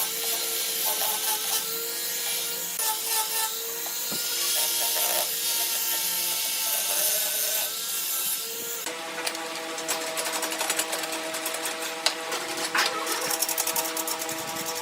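An electric power tool running on wood with a steady motor whine. About nine seconds in the pitch shifts and a rapid crackle of cutting or abrading sets in.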